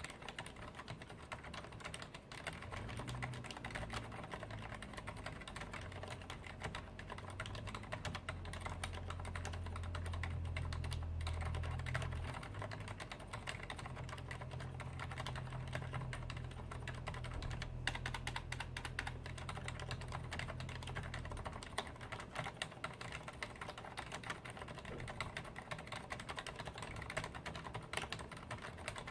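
Continuous typing on a Leopold FC980M mechanical keyboard with Cherry MX Silent Red switches, set up with its tilt feet raised: a dense, unbroken run of keystrokes with the usual mechanical clack damped down. A low steady hum sits underneath from a couple of seconds in until about two-thirds of the way through.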